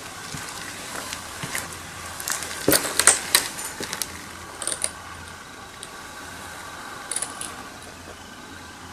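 Footsteps crunching and crackling on rubble and dry leaves, in scattered irregular bursts, the loudest cluster about three seconds in.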